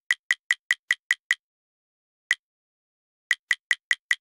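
A sharp ticking sound effect, every tick identical, repeating about five times a second with dead silence between. The ticks stop after about a second and a half, one lone tick comes a second later, and the run of ticks starts again near the end.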